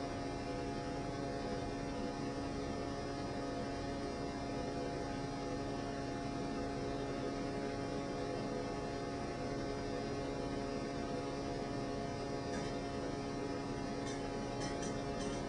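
A steady hum and hiss with several held tones, unchanging throughout, and a few faint clicks near the end.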